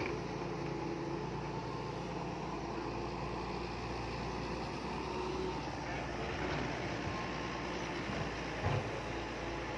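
Heavy construction machinery's diesel engine running steadily, with one short knock a little before the end.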